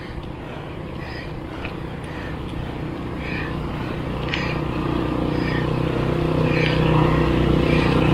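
A motor vehicle's engine with a steady note, growing steadily louder as it approaches.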